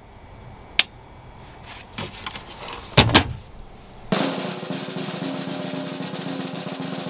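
A few sharp clicks and knocks, the loudest pair about three seconds in, like cabinet doors and latches being handled. About four seconds in, a steady buzzing hum starts abruptly and continues.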